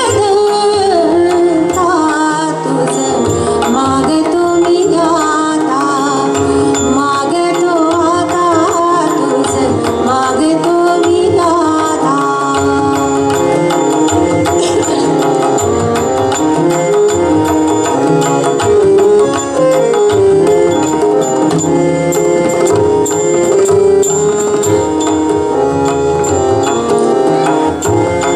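Live Indian devotional song (bhajan): a woman singing ornamented, gliding phrases, accompanied by harmonium and tabla.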